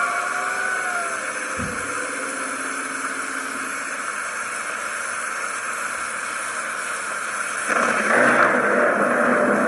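Steady hiss of heavy rain that grows louder about eight seconds in.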